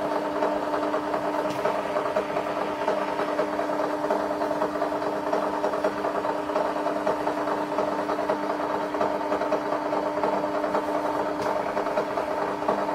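Sharp XE-A203 cash register's built-in receipt printer running continuously, a steady fast mechanical buzz as it feeds and prints a long report. It is printing the Z1 electronic journal reset report that clears an EJ near-full or EJ data full error.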